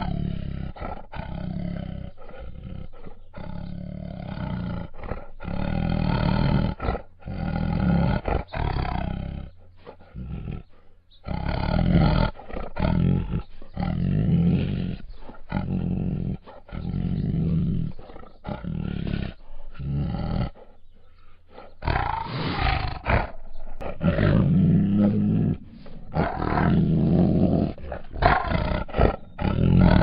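Female Bengal tiger giving a long series of hoarse growls and roars, each a second or two long, with abrupt short breaks between them.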